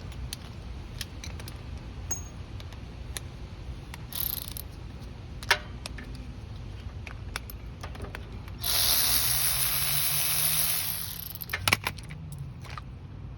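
A spray hissing in one steady burst of about two seconds while the carburetor is cleaned, with a shorter hiss earlier. Light clinks and clicks of small metal carburetor parts and tools are handled throughout.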